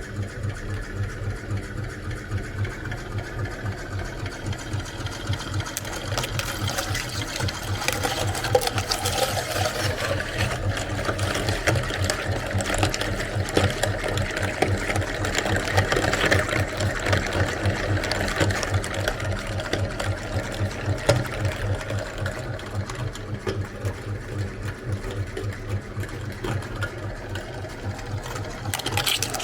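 Meat grinder running and grinding eggs, with a rapid, even mechanical clatter that goes on unbroken.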